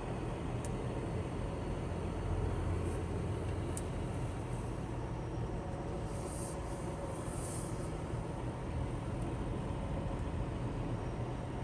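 Steady engine drone and road noise inside a tractor-trailer's cab while driving, with a few faint clicks and a short hiss about two-thirds of the way through.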